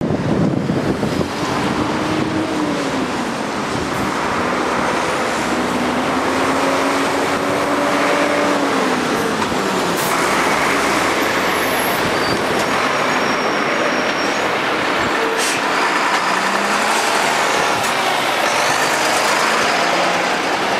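Lorries and cars driving through a roundabout, their engines running steadily with engine notes rising and falling as they pull away. A box truck passes close about halfway through, and a refrigerated semi-trailer rolls right past near the end.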